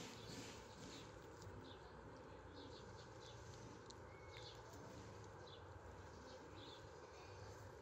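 Near silence: faint outdoor ambience with a string of short, faint, high bird chirps through the middle.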